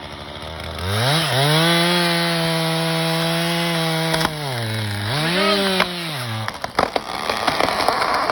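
Two-stroke chainsaw cutting through a tree: the engine revs up about a second in and holds a steady high pitch, eases off and revs again, then stops. A few sharp cracks and snaps follow near the end.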